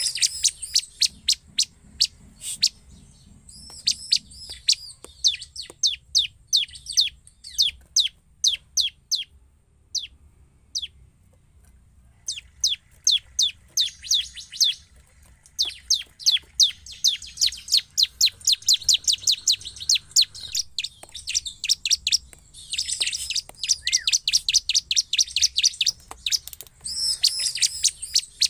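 Bar-winged prinia (ciblek) in full song: long runs of sharp, quick chirps, with a short pause about halfway through and faster runs that blur into trills later on.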